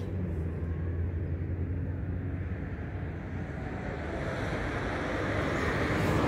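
Road traffic: a steady low rumble of passing vehicles, growing louder in the last couple of seconds as a vehicle comes closer.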